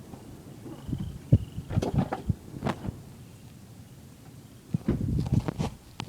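Frogs croaking in short bursts of quick pulses, twice, over a faint high trill.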